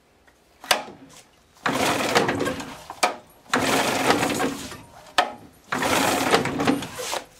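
Evinrude 35 hp two-stroke outboard being pull-started by hand: three pulls on the recoil starter rope, each cranking the engine for about a second and a half and each led by a sharp click. The engine does not catch.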